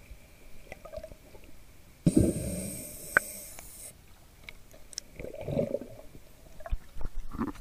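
Scuba diver's exhaled regulator bubbles rushing past an underwater camera in bursts: a long one about two seconds in with a sharp click partway through, then shorter ones later.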